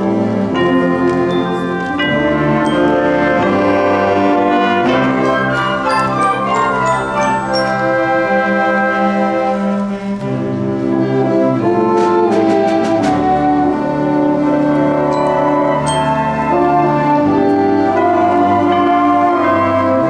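School concert band playing a Christmas piece: woodwinds and brass in full sustained chords over tuba. A short run of percussion strikes comes a little past the middle.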